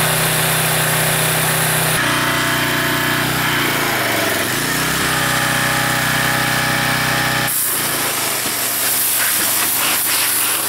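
Gas pressure washer's Briggs & Stratton engine running steadily. About three-quarters of the way through, the hiss of the high-pressure water spray from the wand takes over.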